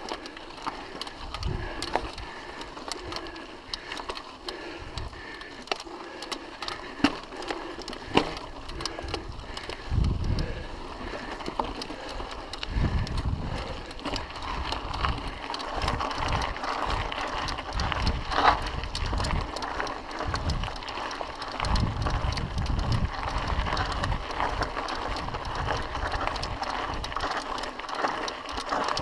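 Mountain bike rolling down a dirt singletrack: tyres crunching on the trail, with the chain and frame rattling and clicking over bumps. Wind buffets the microphone in repeated low gusts from about a third of the way in.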